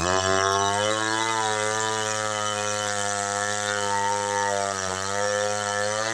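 Chainsaw engine running at a steady high speed, as when cutting wood into boards, its pitch wavering slightly. It starts abruptly.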